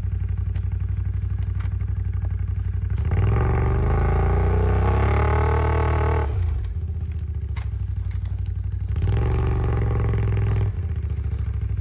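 ATV engine running steadily, opened up twice, with the pitch rising through the first burst of about three seconds and a shorter burst near the end, as the quad pushes uphill through deep snow.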